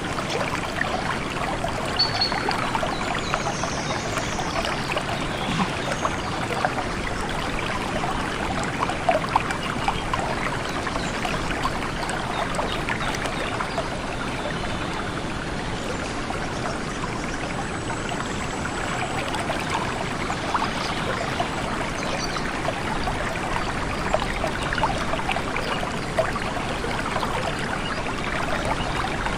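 Stream water flowing and babbling over rocks, steady throughout, with many small splashes and trickles.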